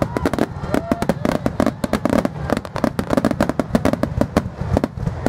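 Aerial fireworks shells bursting in a rapid barrage: a dense run of bangs and crackles, many a second.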